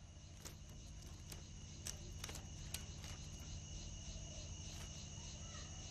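Faint, steady trilling of crickets over a low hum, with a few faint ticks.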